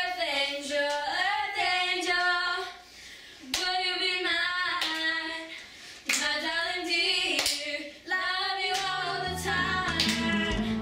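Two girls singing a song together without accompaniment, clapping their hands along with it. Near the end, low instrumental music comes in under the singing.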